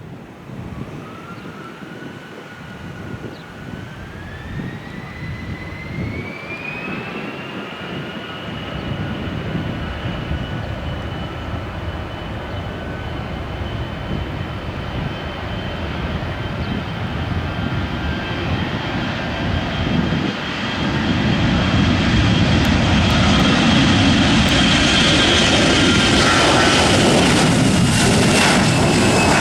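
Airbus A321's twin CFM56 turbofans spooling up. A whine rises in pitch over the first several seconds and then holds steady over a broad jet roar that grows louder, stepping up about two-thirds of the way through.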